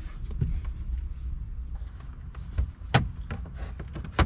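Clicks and knocks of handling inside a car's dash and footwell as someone reaches under the dashboard, over a steady low rumble; the sharpest knocks come about three seconds in and just before the end.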